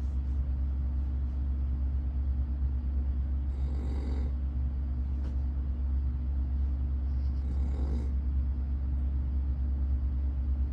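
A man snoring in his sleep, one snore about every four seconds, over a loud steady low hum.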